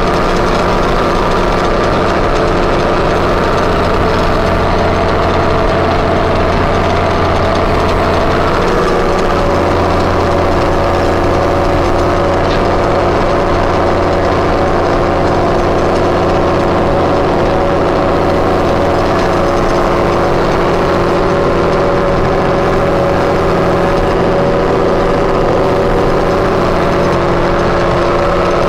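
Ford TW-20's turbocharged six-cylinder diesel engine running steadily while the tractor pulls a soil finisher through corn stubble, heard from inside the cab. Its note drops slightly about nine seconds in.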